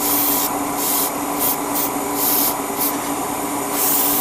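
Airbrush spraying paint in about six short bursts of hiss, each well under a second, over the steady hum of a spray booth's extraction fan.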